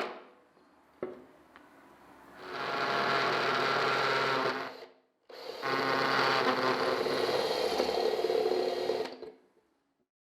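A small electric motor runs in two bursts, about two and four seconds long, with a brief stop between them, and a single sharp click about a second in.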